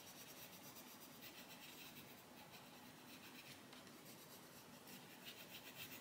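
Faint scratching of a Faber-Castell Polychromos coloured pencil moving over paper in short repeated strokes as it lays down yellow.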